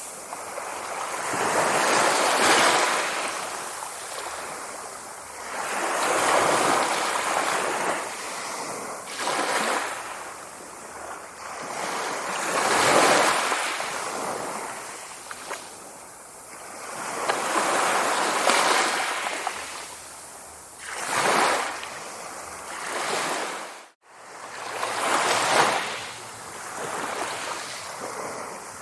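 Sea waves breaking and washing on the shore, the surf swelling and fading every few seconds, with a brief break in the sound about two-thirds of the way through.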